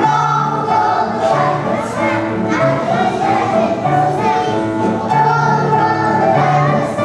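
A group of young children singing a song together over instrumental backing music.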